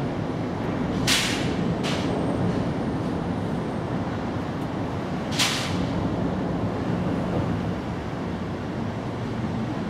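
Steady low rumble of outdoor background noise, with three short hisses about one, two and five and a half seconds in.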